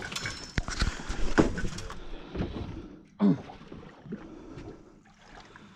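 A few sharp knocks and clatters on a small fishing boat over a wash of water and wind noise, fading quieter after about two seconds, with one short falling voice-like sound about three seconds in.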